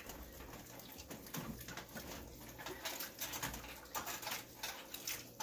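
Wooden spoon stirring a big stainless pot of thick soup full of beans, corn and ground beef: faint, irregular wet scrapes and squelches.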